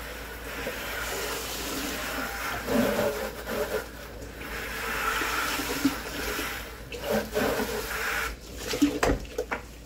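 Water sloshing and running inside a plastic 5-gallon bucket as it is rinsed out at a sink, with a few knocks of the bucket near the end.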